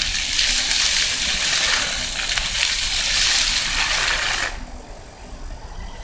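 Floor fountain's rows of vertical water jets shooting up from the paving and splashing back down, a steady hiss of spray that cuts off suddenly about four and a half seconds in as the jets shut off.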